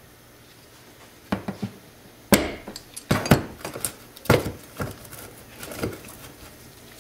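Small metal parts and tools clinking and knocking on a workbench as they are picked up and handled: a string of irregular sharp clinks, the loudest a little past two, three and four seconds in.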